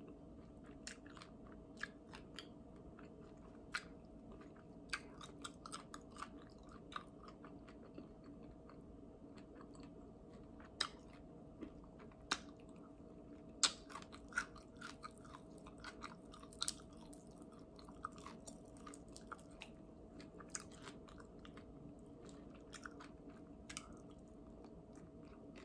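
A person chewing and biting into barbecue chicken wings and fries, with scattered sharp mouth clicks and smacks, a few louder than the rest. A faint steady hum runs underneath.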